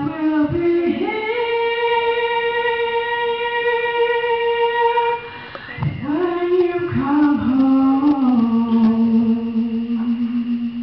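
A young woman singing solo into a handheld microphone, holding long notes: a higher one for about four seconds, then after a short breath a lower phrase that settles into a held note near the end.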